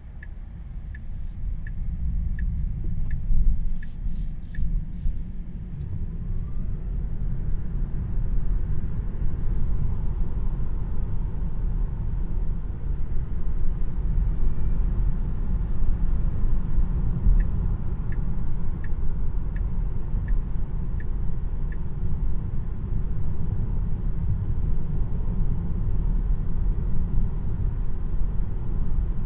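Road and tyre rumble inside the cabin of a Tesla Model 3 Premium RWD. It grows louder over the first several seconds as the car gathers speed, then runs steady. The turn-signal indicator ticks about every 0.7 s at the start and again for a few seconds past the middle.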